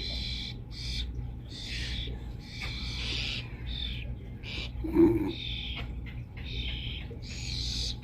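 Starlings' harsh, raspy begging calls, repeated in short bursts every half second or so: a young bird demanding food, with another starling calling back. A brief lower-pitched sound about five seconds in is the loudest moment.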